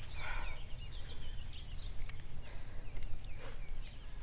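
Outdoor background: a steady low rumble with faint, repeated bird chirps and a few small clicks.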